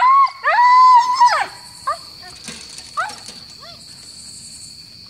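Harnessed sled dogs whining and yelping, eager to start pulling: one long rising-and-falling whine-howl in the first second and a half, then a few short yips around two and three seconds in. A steady high insect drone runs underneath.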